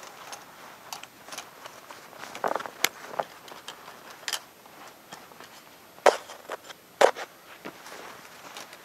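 Steel 160-size body-grip traps being handled, with scattered metal clicks and rattles. Two louder knocks come about 6 and 7 seconds in.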